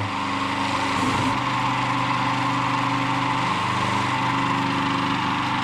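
Power-driven wire brush running steadily against a metal tap, scrubbing old paint off it. There is a steady motor hum under a scratchy hiss, and the hum's pitch shifts slightly about a second in and again near four seconds as the load on the brush changes.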